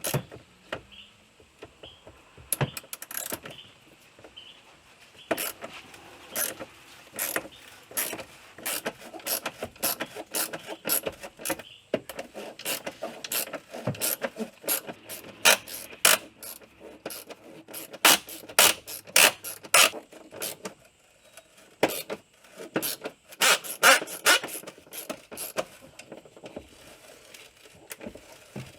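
Socket ratchet clicking in runs as the battery's 10mm hold-down bolt is turned out, with short pauses between strokes.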